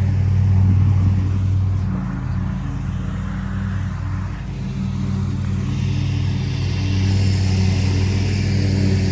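Petrol lawnmower engine running steadily, dipping slightly in level about halfway through, with a higher hiss joining from about six seconds in.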